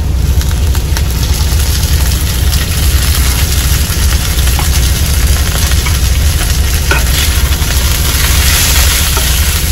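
Marinated chicken pieces sizzling and frying as they land in a hot square skillet with sliced onions, the sizzle steady throughout. A steady low hum runs underneath.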